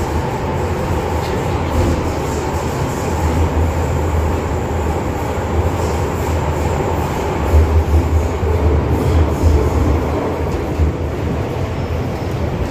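Inside the car of an MTR Island line M-Train running in the tunnel: a steady, loud rumble of wheels and running gear with a low hum. It pulls into a station near the end.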